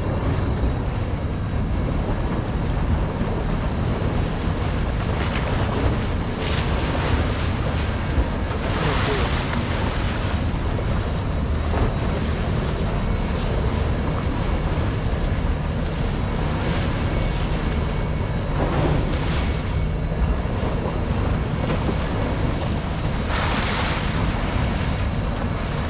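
Wind buffeting the microphone and sea water washing against an offshore fishing boat, over a steady low rumble. Louder rushes of water come about nine seconds in and again near the end.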